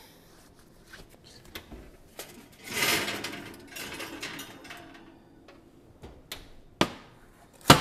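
An oven door being opened with a noisy rush about three seconds in and a foil-covered baking dish drawn out of the oven, then sharp knocks as the dish goes onto the glass cooktop and the oven door is shut, the loudest knock near the end.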